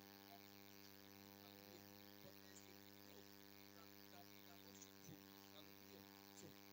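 Near silence with a faint, steady electrical mains hum and its overtones.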